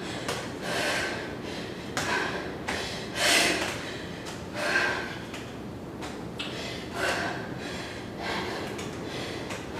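A woman breathing hard between jumps in a bodyweight HIIT set: forceful, breathy exhales every second or two, with a few soft thumps of feet landing on the mat.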